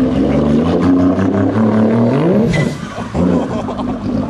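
Jet ski engine running and being revved: its pitch climbs about two seconds in, falls away briefly near three seconds, then picks up again.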